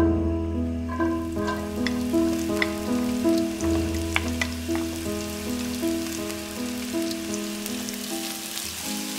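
Sliced onions sizzling in hot olive oil in a nonstick frying pan, with a few sharp clicks as they are tipped in and stirred with a spatula. A background melody of held notes plays throughout.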